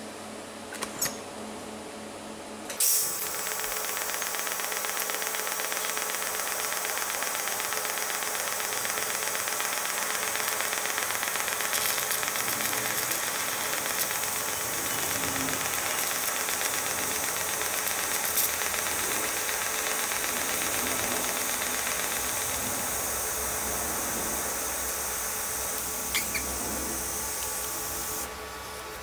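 TIG welding arc on a cast iron bracket, fed with cast iron filler rod: it strikes with a sharp onset about three seconds in, runs as a steady hissing buzz, and cuts off about a second before the end.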